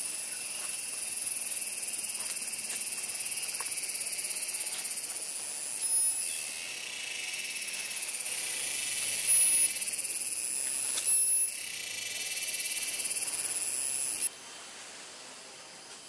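Dense rainforest insect chorus, a steady high-pitched shrilling, with a few brief louder high notes about 6, 9 and 11 seconds in. The chorus drops away suddenly near the end.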